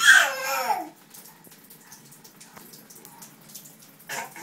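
A baby's loud, high squeal that slides down in pitch over about a second, followed by a faint steady hiss, and a second short vocal sound near the end.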